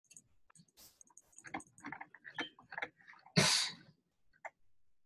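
Soft, irregular clicks and taps from a computer being worked while scrolling through pages, with one short rushing noise a little past the middle.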